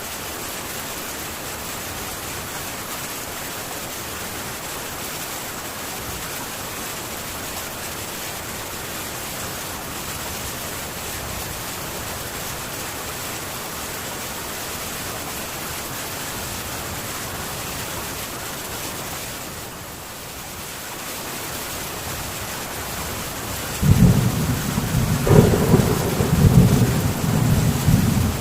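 Steady heavy rain drumming on a metal tin roof. It eases briefly, then near the end a loud low rumble of thunder rolls in and surges.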